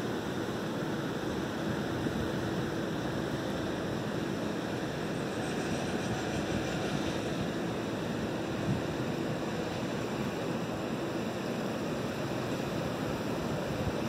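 Steady outdoor wind and water noise, an even rushing sound with no distinct events, with a faint steady hum underneath.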